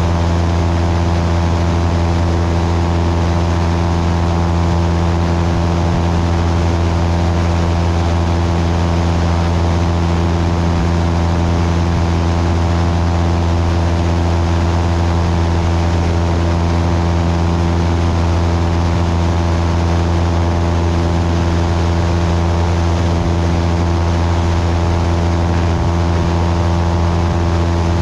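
Cessna 172's piston engine and propeller droning steadily in flight, heard from under the wing with a constant rush of airflow.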